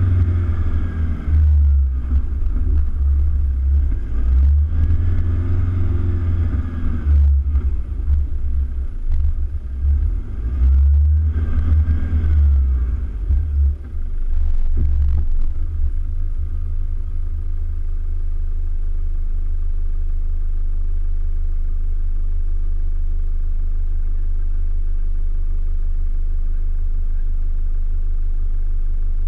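Toyota Hilux Vigo pickup's engine heard from a hood-mounted camera while driving through soft sand dunes: the revs rise and fall in three surges over a heavy, uneven low rumble, then after about sixteen seconds settle into a steady low drone.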